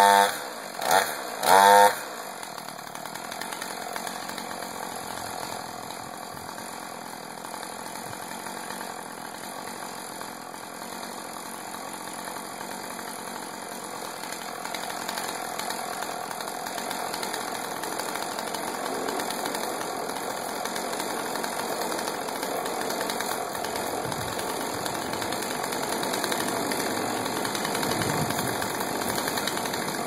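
Two-stroke Husqvarna chainsaw revved in two short bursts near the start, then left running at a steady idle.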